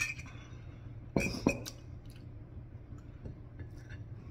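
A metal spoon clinking against a ceramic mug: a light clink with a short ring at the start, then two sharper, louder clinks about a second in, over a low steady hum.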